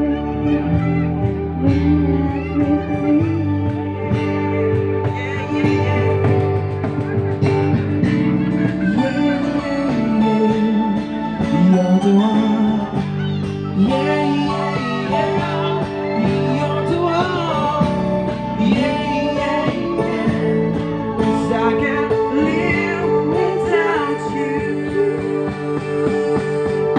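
An acoustic band playing the wordless instrumental break of a pop ballad, led by guitar with a melody line that bends up and down in pitch, amplified through PA speakers.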